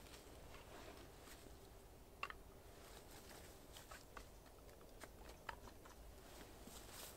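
Faint, sparse clicks and knocks of split firewood pieces knocking against each other as they are picked up and gathered into an armful, the clearest knock about two seconds in.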